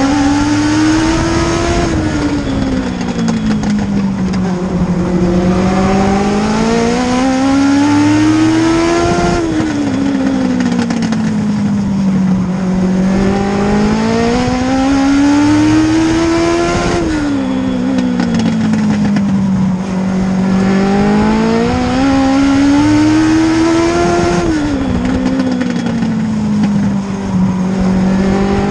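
Race car engine heard from inside the cockpit, its pitch climbing along each straight, then dropping sharply as the throttle is lifted for the turn, four times, about every seven and a half seconds: the lap-after-lap rhythm of a short oval track.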